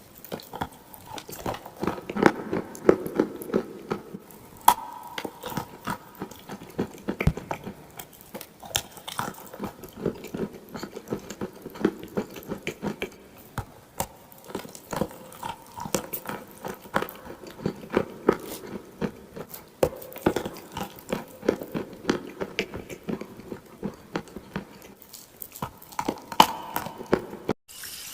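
Close-up crunching of dry and wet clay being bitten and chewed: a dense, irregular run of sharp crunches and crackles.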